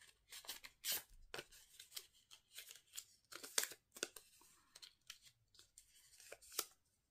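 Small paper slip being folded and creased by hand: a quick string of short, crisp rustles and crackles, faint.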